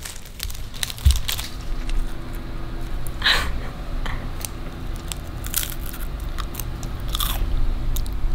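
Saltine crackers being bitten and chewed: a run of short dry crunches. A single low thump about a second in.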